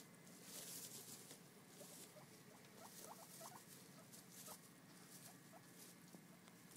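Guinea pigs moving through hay bedding with faint, repeated rustling, and a quick run of short, faint rising squeaks about three seconds in, with a couple more later.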